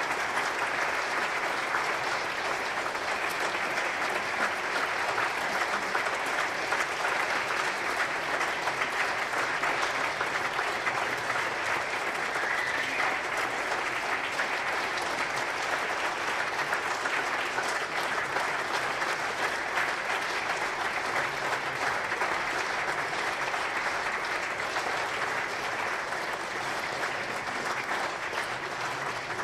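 Audience applauding, a dense and steady clapping that eases off a little near the end.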